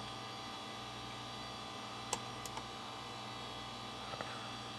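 Steady hum of a running desktop computer, with a few faint short clicks of computer input about two seconds in and again near the end.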